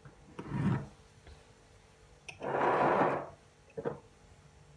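Glass bowls being moved on a kitchen countertop: a short scrape about half a second in, a longer rubbing slide of glass on the counter around the middle, and a light knock near the end as a bowl is set down.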